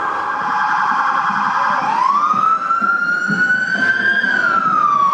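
Emergency vehicle siren. It starts with a fast warbling yelp, then about two seconds in switches to a wail that rises slowly, peaks about four seconds in and begins to fall.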